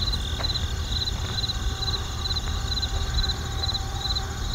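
Crickets chirping as the stock 'crickets' cue for awkward silence: short, high trilled chirps repeating about twice a second over a steady low rumble.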